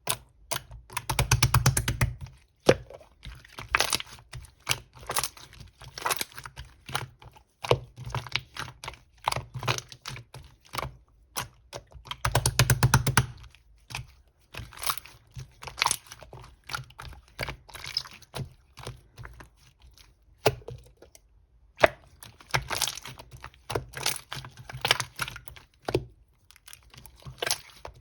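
Clear slime being squished, poked and stretched by hand, giving irregular sticky crackles, pops and clicks. Two denser runs of rapid crackling come about a second in and again about twelve seconds in.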